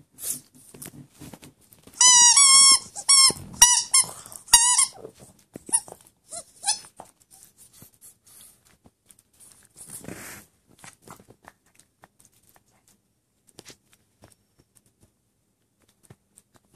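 Rubber chicken squeaky toy being bitten by a Boston terrier, giving about five loud, high squeaks in quick succession a couple of seconds in. Soft scattered mouthing sounds and a brief rustle follow.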